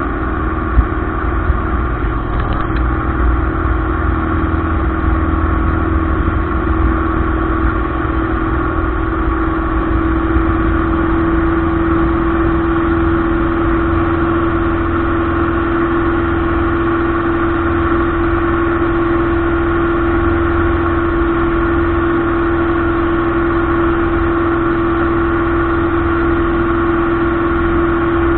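Light aircraft's piston engine and propeller running at high power, heard from inside the cockpit: a loud, steady drone with one strong held hum, which builds a little about ten seconds in and then holds steady. Two short clicks near the start.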